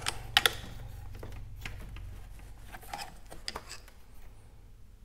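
Scattered light clicks and scrapes of a small screwdriver and hands working the plastic center switch bracket out of a Honda Gold Wing's dash, with a couple of sharper clicks near the start, over a steady low hum.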